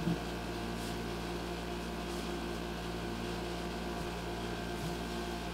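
Steady electrical hum and hiss from an electric guitar rig left switched on, with a short soft knock right at the start as the guitar is handled.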